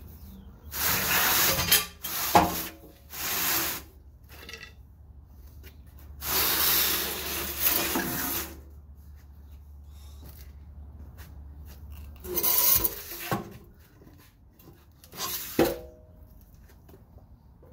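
Rusty steel exhaust pipe and muffler scraping and dragging on a concrete floor in several separate bursts, with a few short metal knocks that ring briefly.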